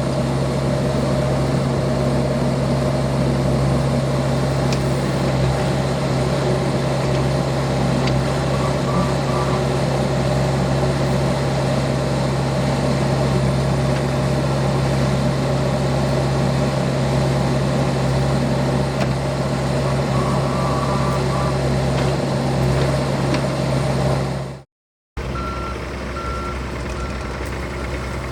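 John Deere 60G compact excavator's diesel engine running steadily under work. After a brief break near the end, its travel alarm sounds a steady series of short beeps.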